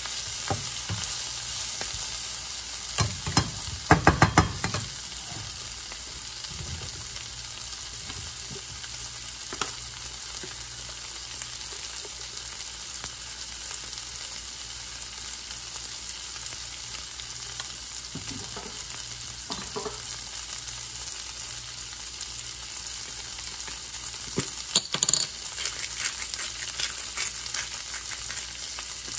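Sliced sausage and spinach sizzling steadily in a nonstick skillet, with a spatula scraping and knocking against the pan in a short burst about three seconds in and again near the end.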